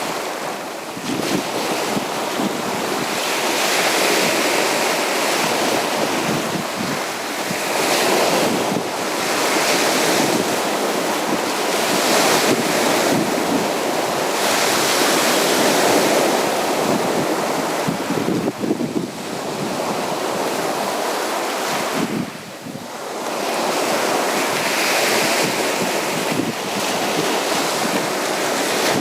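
Sea waves breaking and washing up on a beach, the surf swelling and ebbing every few seconds, with wind buffeting the microphone.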